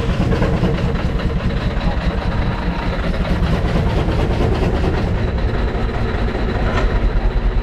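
1919 Advance-Rumely 20-horsepower steam traction engine running steadily at about 280 rpm while belted to a sawmill, its noise pulsing in a fast, even beat.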